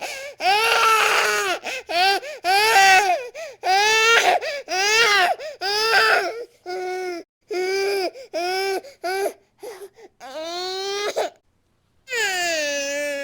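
A baby crying hard in a rapid run of short, high-pitched wails, each broken off after a fraction of a second. About a second of silence falls near the end before a long, sustained wail begins.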